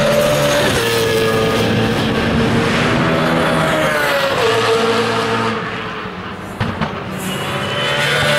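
BMW Z4 GT3 race car's V8 engine at high revs under acceleration. The pitch drops sharply with upshifts about a second in and again about four seconds in, then climbs. The sound fades with a couple of sharp cracks near seven seconds, then swells again with rising pitch near the end.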